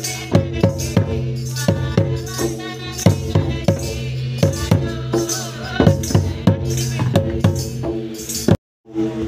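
Large skin-headed drum on a player's lap, struck with two curved wooden sticks in a steady rhythm of about three beats a second, with voices in the background. The sound cuts out briefly near the end.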